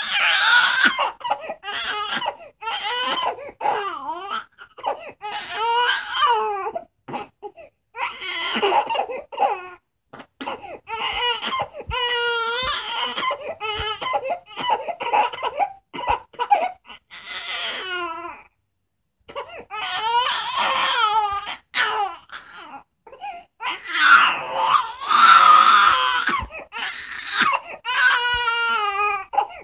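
Infant crying: repeated high-pitched cries broken by short breaths, with a brief pause about two-thirds of the way through and the loudest cries near the end.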